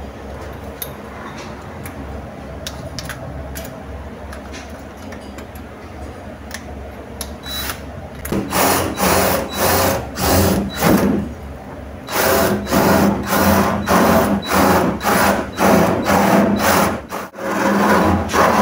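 Cordless drill run in short trigger bursts, starting about eight seconds in at roughly two pulses a second, with a brief pause midway. Before that there are only light clicks and handling knocks.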